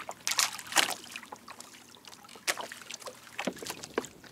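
Irregular small splashes and knocks of water and handling at a fishing kayak, a few sharp clicks standing out over a faint water hiss.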